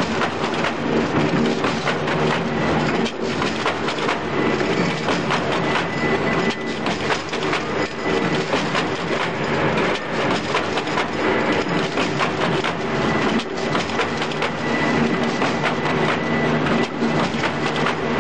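Heavy-duty hexagonal gabion mesh weaving machine running, its wire-twisting rollers and bobbins making a steady, dense metallic clatter of rapid clicks.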